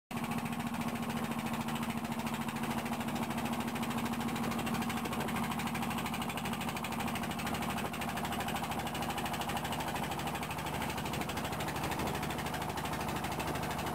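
A small boat's engine running steadily, heard on board: an even hum with a rapid, regular knocking beat.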